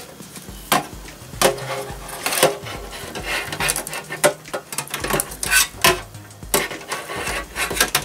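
Sheet-metal hard-drive cage and computer case parts clinking and knocking as they are handled, with the rustle and click of power-supply cables and plastic connectors, in irregular sharp knocks.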